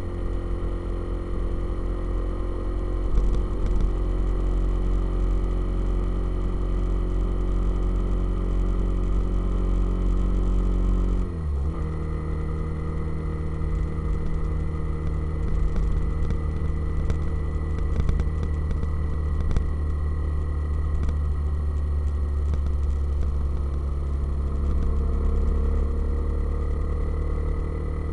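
Motorcycle engine running steadily under a heavy low rumble. About eleven seconds in, the engine note drops sharply and then holds at the lower pitch, rising a little near the end.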